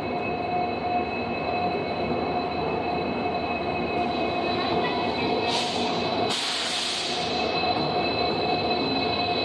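An EMD WDP-4D diesel locomotive running as it pulls a passenger train slowly alongside the platform, with a steady high-pitched whine over its engine rumble. A burst of hissing comes about six seconds in and lasts a second or two.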